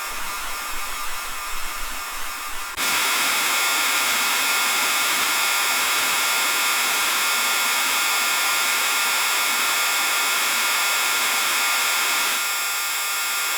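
Rain on a window pane: an uneven lighter patter, then about three seconds in a louder steady downpour hiss cuts in suddenly, easing a little near the end.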